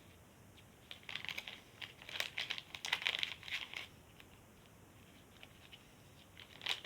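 Small plastic packet of foam cubes crinkling and rustling as it is handled and emptied into a pot of slime, for about three seconds from a second in, with a short burst of crinkling again near the end.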